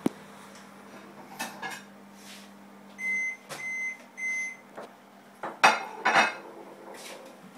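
Microwave oven running with a steady hum that stops about three seconds in, followed by three short high beeps signalling the end of the heating cycle. Then a few loud clunks and clatter as the door is opened and the plate handled.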